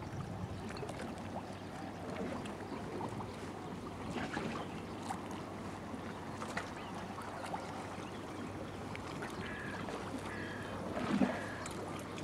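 Harbour ambience: water lapping against a moored wooden boat and the stone quay, with scattered small knocks and clicks. Three short high tones sound near the end, and there is a soft bump about a second before the end.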